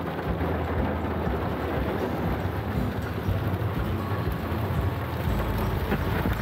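Steady rumble and hiss inside a moving car driving on a wet road in torrential rain.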